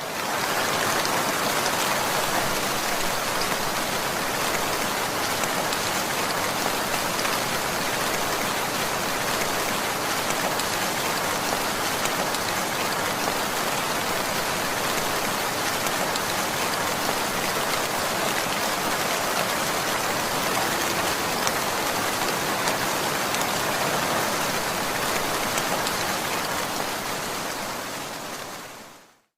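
Heavy rain falling steadily: an even hiss of many drops with no thunder. It fades out near the end.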